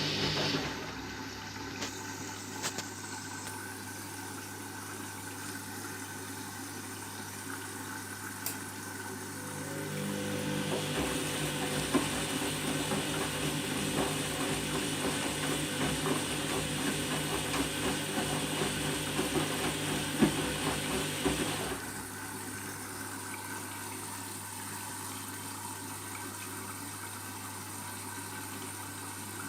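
Candy washing machine filling with water: a steady hum with water running in, which grows louder and rushing for the middle stretch, with a few light clicks.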